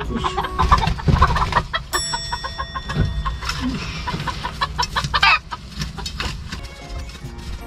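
Chickens clucking over scattered knocks and clicks, with a loud, wavering squawk about five seconds in. A short ringing tone sounds about two seconds in.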